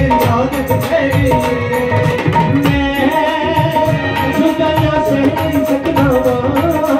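Live Indian devotional band music: a drum beaten with a stick in a fast, steady rhythm under held keyboard notes, with a male singer's voice amplified through a PA.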